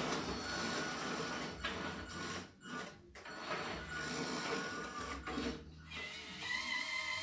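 Hydraulic pump and valves of a scale RC excavator whirring and hissing as the boom and arm move, dropping out briefly about two and a half and three seconds in and again near six seconds. Music comes in near the end.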